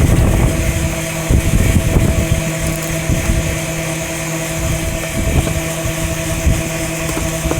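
Outdoor package HVAC unit running with its newly fitted condenser fan motor, a steady hum with fan noise; it is running normally after the fan motor and capacitor replacement. Wind buffets the microphone, most strongly in the first couple of seconds.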